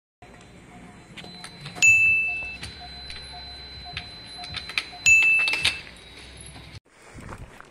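Two short, high ringing chimes about three seconds apart, over a faint steady high tone.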